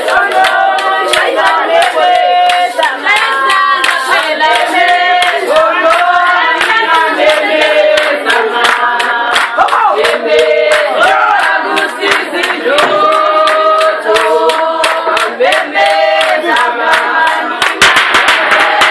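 A group singing, accompanied by steady rhythmic hand clapping; near the end a drum starts beating.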